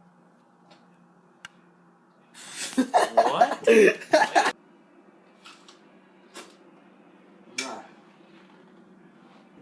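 A loud burst of a person's voice lasting about two seconds, then a few scattered clicks and one short noisy knock.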